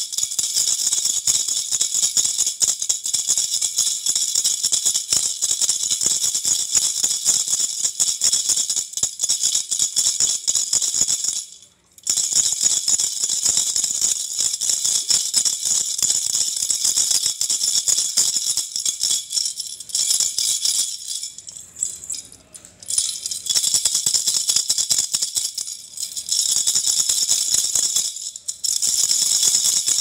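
Pink plastic baby rattle (jhunjhuna) shaken hard by hand, the beads inside rattling in a dense, rapid, high-pitched patter. The shaking stops briefly a little before halfway and goes softer and sparser for a couple of seconds about two-thirds through.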